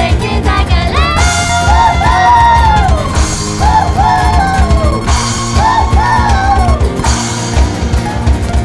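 Pop-rock band playing a song with a full drum kit and bass under a sung melody. The singing comes in phrases one to three seconds long with short gaps between them.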